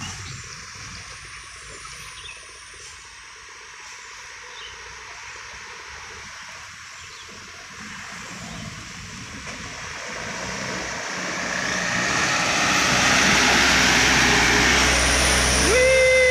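Cargo truck climbing the bend and passing close: engine hum and tyre hiss on the wet road build from about ten seconds in and are loud near the end. A horn starts sounding just before the end.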